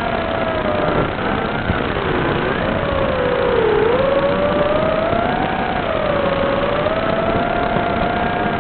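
Small FPV quadcopter's electric motors and propellers whining, the pitch sliding up and down with throttle, with a dip and recovery about four seconds in.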